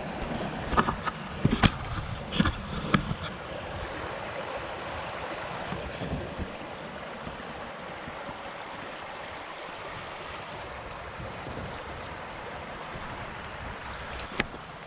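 Flowing river water, a steady rushing hiss, with a few sharp knocks in the first three seconds.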